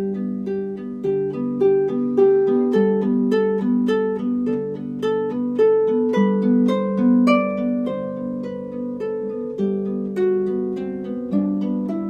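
Harp music: a steady flow of plucked notes over sustained lower notes.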